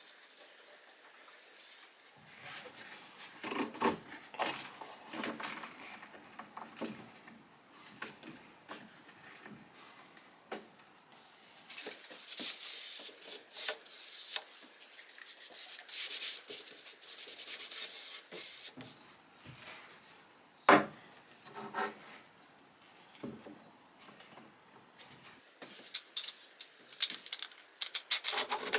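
A brush spreading glue into a split mahogany moulding, then a cloth rubbing hard along the wood for several seconds to wipe off the squeeze-out. A single sharp knock follows, and near the end a run of knocks and clatter as wooden clamping blocks and a clamp are set against the moulding.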